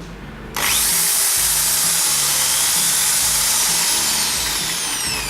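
Maktec MT814KSP corded hammer drill running free with no load. It switches on about half a second in with a high whine that climbs quickly to speed, holds steady, then starts to wind down in pitch near the end as it is let off.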